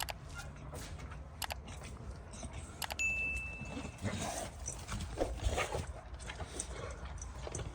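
A dog stirring and making soft breathing and snuffling noises, with a few sharp clicks and a brief high steady beep about three seconds in.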